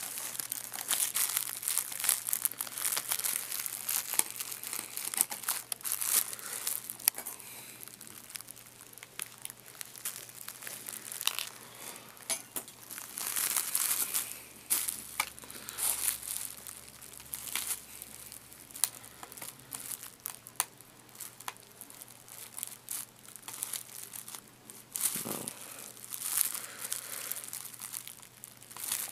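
Plastic bubble wrap crinkling and crackling irregularly as hands press and move over it.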